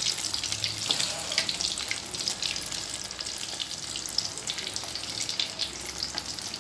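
Potato snack deep-frying in hot oil in a steel kadai on high heat, early in the fry: a steady sizzle with many small, sharp crackles.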